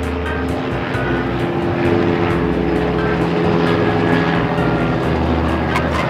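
Propeller airplane engine running steadily, with music underneath.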